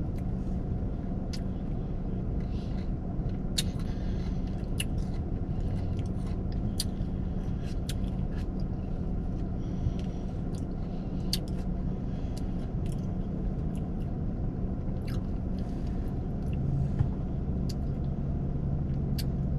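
A person eating: chewing with frequent small, sharp mouth clicks and smacks at irregular moments, over a steady low hum like an idling car heard from inside the cabin.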